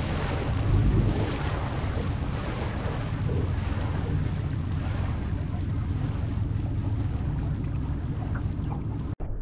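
Steady wind buffeting the microphone over a low rumble from a small open boat on the water. The sound drops out sharply for an instant near the end.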